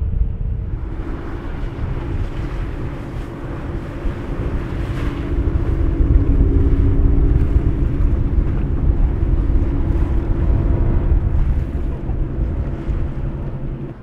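Outboard motors of fast-running powerboats passing by, a steady engine drone with the hiss of spray from the hull, growing louder past the middle. Wind buffets the microphone throughout.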